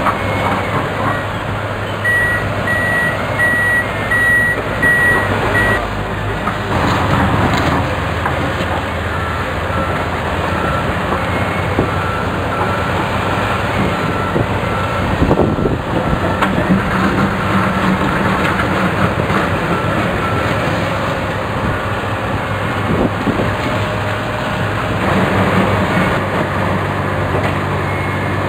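Komatsu HB215LC-1 hybrid excavator's diesel engine running steadily at work, with an electronic warning beeper sounding in two spells: a higher-pitched beeping a couple of seconds in, then a lower-pitched beeping from about ten to twenty seconds in.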